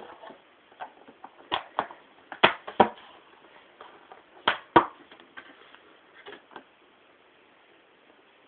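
A series of sharp knocks and taps. The loudest come in pairs a fraction of a second apart, around one and a half, two and a half and four and a half seconds in, and they die away after about six and a half seconds.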